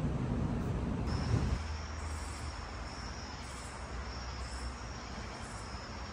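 Night insects calling: a steady high-pitched trill with a higher pulsing call about once a second, over a low rumble. The first second or so is a louder low rumble before the insects start.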